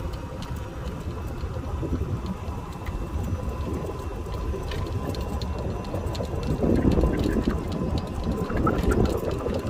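Ride in a golf cart along a paved cart path: rumble of the cart with wind buffeting the microphone and a thin steady whine, getting louder about two-thirds of the way in.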